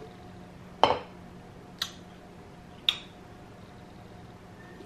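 Drinking from a soda can: three short, sharp gulping sounds about a second apart, the first the loudest.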